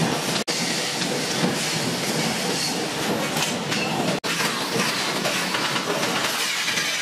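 Steady, loud metal-fabrication workshop noise: a dense rattling hiss of machinery and metalwork. It cuts out for an instant about half a second in and again about four seconds in.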